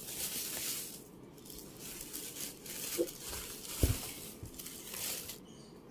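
Cardboard shoebox being opened and its paper wrapping rustling and crinkling, with one low knock just before four seconds in.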